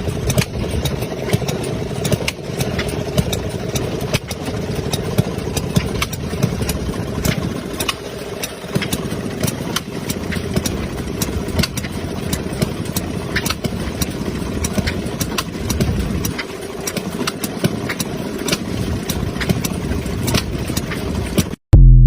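A 1928 washing machine running: a steady mechanical hum with constant rattling and clicking from its works. It cuts off suddenly near the end, followed by a brief loud burst.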